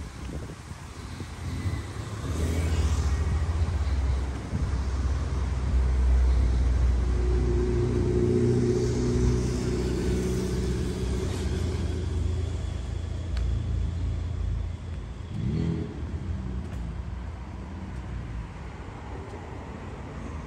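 A motor vehicle's engine running on a nearby street: a low rumble that builds about two seconds in, is loudest mid-way, and eases off after about sixteen seconds, with a brief rising rev near the end.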